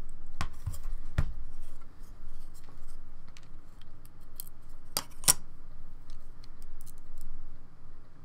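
Light clicks and taps from handling small metal insert nuts and a carbon fiber frame plate on a cutting mat. A few sharper clicks stand out, the loudest being two close together about five seconds in.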